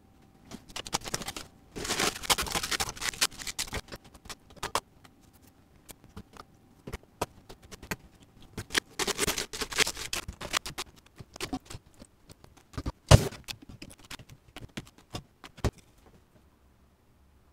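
Food being laid into a cast-iron Dutch oven by hand: irregular clicks, rustles and light knocks of ingredients and hands against the pot, with two busier rustling stretches and one sharp knock about two-thirds of the way through.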